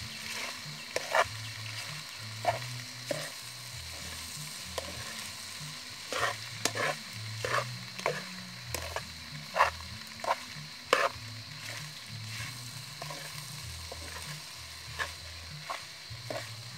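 Macaroni sizzling as it fries in a pan, stirred with a metal spatula that scrapes and clicks against the pan at irregular moments over a steady frying hiss.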